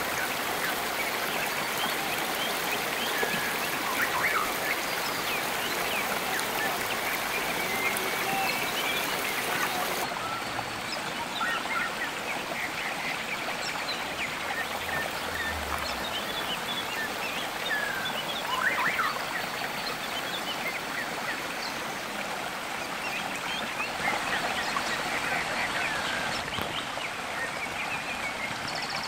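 Shallow rocky stream running, a steady rush and trickle of water over stones. The sound turns duller about ten seconds in.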